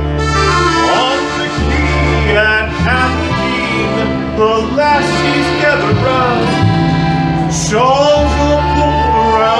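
Sea shanty band's instrumental break: a tin whistle carries the tune over strummed acoustic guitar and a plucked upright bass, with accordion in the mix.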